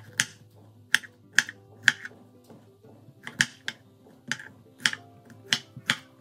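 Knife chopping a cucumber into cubes on a wooden cutting board: about a dozen sharp, irregularly spaced knocks of the blade through the cucumber onto the board.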